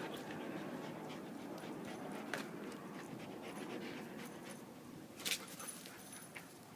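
A dog panting rapidly and steadily, easing off slightly toward the end, with a few short sharp clicks, the clearest about five seconds in.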